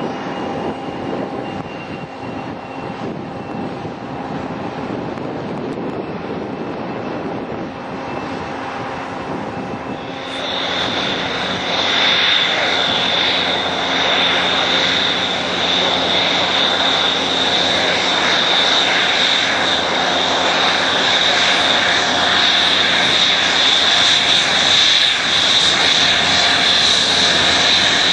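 F-16 fighter jet engines on the runway: a steady jet roar, then, about ten seconds in, an abrupt change to a closer, louder jet with a strong high whine.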